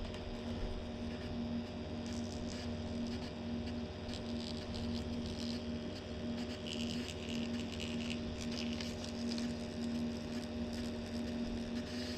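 Burnham Alpine condensing gas boiler running at low fire: a steady hum from its combustion blower and burner, with one low steady tone and a few faint light clicks.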